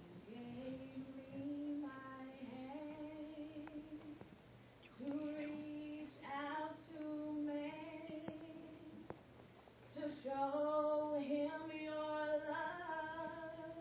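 A woman singing a slow gospel praise song into a microphone, in three long phrases of held notes that slide between pitches.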